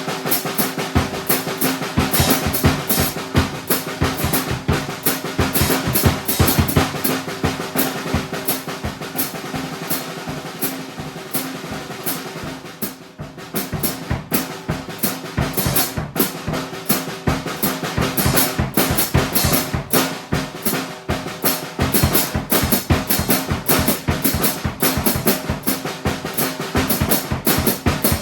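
Drum kit played solo in a free improvised groove, with dense strokes on the kick and snare and ringing over the top. The playing eases off and gets quieter about twelve seconds in, then builds back up.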